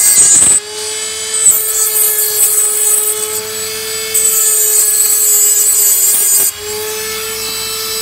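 Dremel rotary tool with a diamond disc running at a steady whine while a porcelain piece is rubbed against the flat of the disc to grind its bottom flat and take off its sharp edges. The grinding comes in three loud harsh spells: one ending about half a second in, then two more of about two seconds each, with the plain motor whine between.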